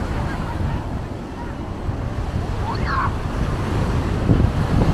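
Sea waves washing onto the shore in a steady rush, with wind buffeting the microphone in low gusts that grow stronger near the end.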